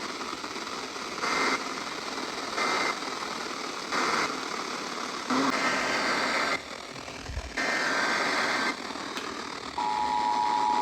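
Emergency Alert System data bursts over hissy radio static: three short end-of-message bursts, then longer bursts of warbling two-pitch digital tones making up the next alert's header. Near the end the steady two-tone attention signal begins.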